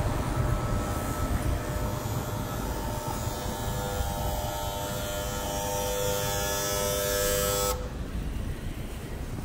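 City street traffic: a low rumble of vehicles, with a steady mechanical whine of several tones that comes in about two seconds in and cuts off suddenly near the end.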